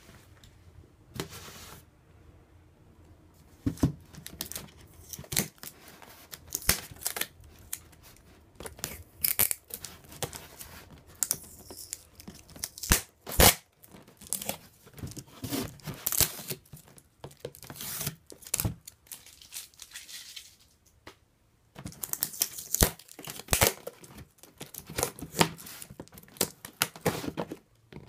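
Tape being torn and peeled off a plastic rearing cup to unseal it: a series of short ripping and crinkling sounds in clusters, with the plastic lid and cup clicking and scraping as they are handled.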